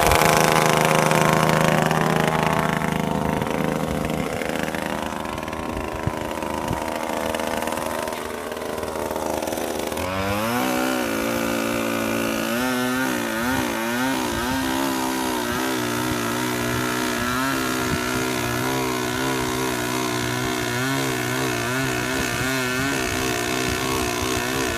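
Gasoline chainsaw running, its engine speed sagging and dropping in pitch over the first several seconds, then opened up sharply about ten seconds in to a steady high speed with small wobbles in pitch as it cuts into a tree trunk.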